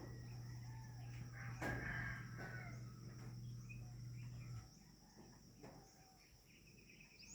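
Quiet farmyard ambience: a steady high insect buzz, a chicken call about two seconds in, and a low hum that cuts off a little past halfway.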